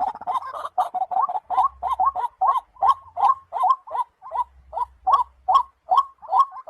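White-breasted waterhen calling: a steady, even run of short, hooked notes, about three a second.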